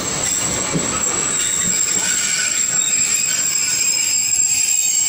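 Passenger train coaches rolling past as the train arrives, with a steady high-pitched squeal from the wheels over the rumble of the running gear.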